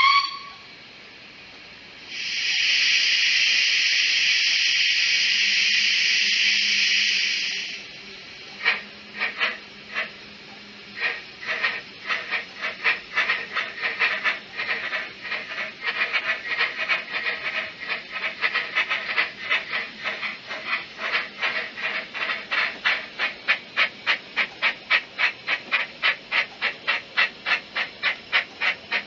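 Sound decoder of a Bachmann DCC-sound Double Fairlie model locomotive, heard through the model's small speaker: a short whistle toot at the start, then a steady steam hiss lasting about six seconds. Steam exhaust chuffs follow, slow at first and quickening as the locomotive pulls away.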